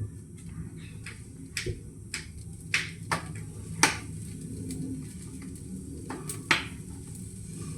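Kitchen cookware clatter: a pan and utensils knocked and set down, about seven sharp clinks and knocks, over a low steady hum.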